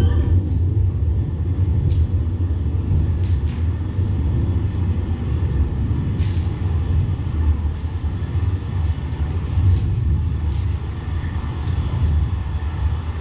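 Steady low rumble, with a few faint clicks scattered through it.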